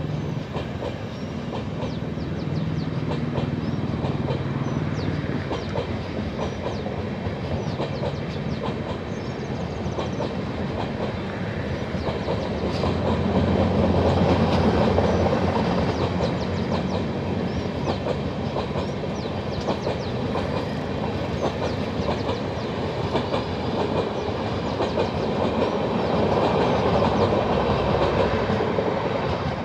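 Indian Railways LHB passenger coaches passing at speed, the wheels clattering in dense rapid clicks over a steady rumble. The sound swells twice and starts to fall away right at the end as the last car passes.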